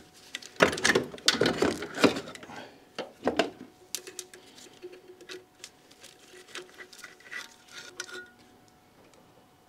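Plastic and rubber engine-bay parts being handled and pulled free: a dense spell of rustling, rattling and knocking in the first few seconds, then scattered light clicks and taps that stop about eight seconds in. The parts are the coolant expansion tank and the air filter and intake housing of a Porsche 924's 2.0 engine.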